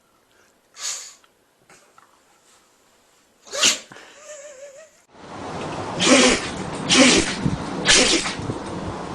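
Sneezes: two short sharp sneezes, the second louder, then a run of three sneezes about a second apart over a steady background hiss.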